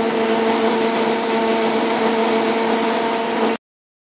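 Steady mechanical hum with several held tones over a hiss from a powered-up Hitachi Seiki HPV 23 CNC lathe standing idle, its spindle not turning. The hum cuts off abruptly about three and a half seconds in.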